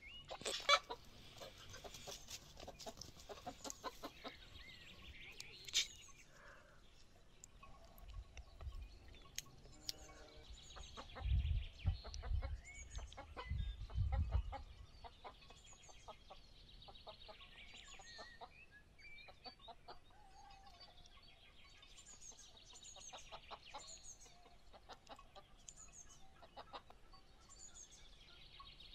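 Chickens clucking, with small birds chirping high and repeatedly through the second half, over a run of short clicks and knocks. A few low rumbles come about halfway through.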